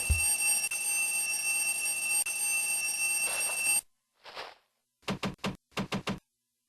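A steady electric ringing like an alarm bell, cutting off abruptly about four seconds in. A short hiss follows, then two quick groups of about three sharp knocks.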